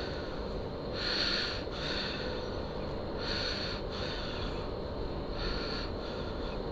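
A person breathing through the nose close to the microphone: soft rushes of air about once a second.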